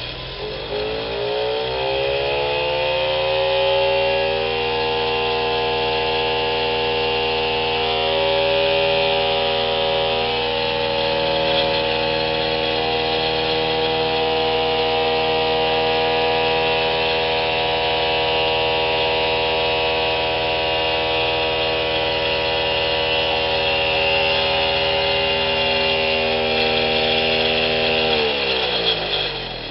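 Sonic Probe 200 mini sonic drill rig running while it cores dry into unconsolidated ground, its oscillations driving the core barrel down. A loud pitched whine rises as the rig spins up over the first few seconds, holds steady, then falls away near the end as it winds down.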